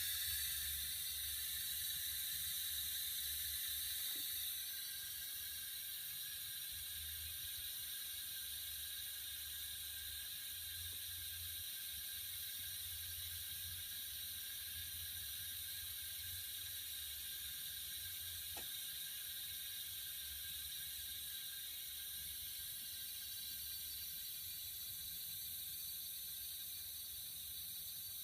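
Steady hissing from a Mercedes-Benz SL500 (R230), the unexplained hiss the owner is trying to track down, with a low rumble underneath. The hiss is a little louder for the first few seconds, then settles slightly quieter.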